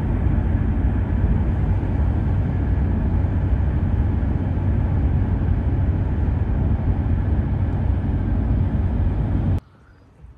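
A moving car, heard from inside: a steady low rumble of road and engine noise. It cuts off suddenly near the end.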